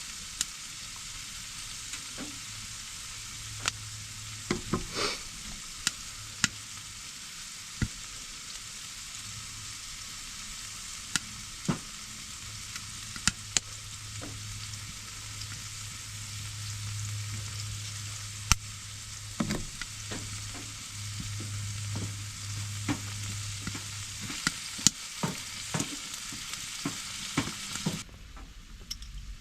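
Food frying in a pan: a steady sizzle with many scattered sharp pops and crackles. The sizzle cuts off abruptly near the end.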